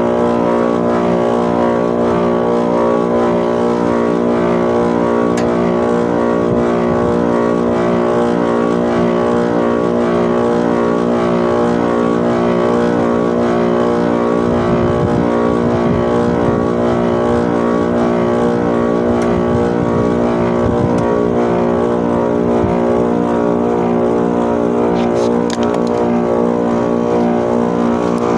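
Split air conditioner outdoor unit's compressor running with a loud, steady hum and a regular pulsing throb. It runs on a new capacitor but is noisy, which the technician takes as a sign of a failing compressor that needs replacing.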